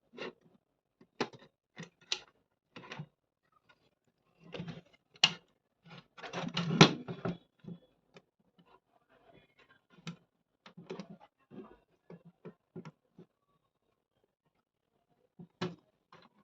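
Irregular light clicks and knocks of small parts being handled, with a denser clatter about six to seven seconds in, as speaker wire connectors are fitted to a Bluetooth amplifier module.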